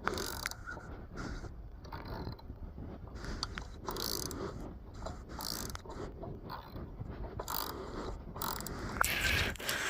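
Ratchet wrench clicking in short irregular runs while loosening the fasteners on a Suzuki GT750 motorcycle's windscreen mounts, with light metal scraping and tool handling.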